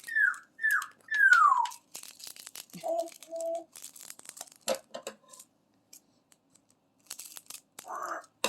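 African grey parrot whistling a few short falling notes, the last one longer, then two short lower notes. Small clicks and rattles of plastic diamond-painting drill bags and containers being handled run throughout.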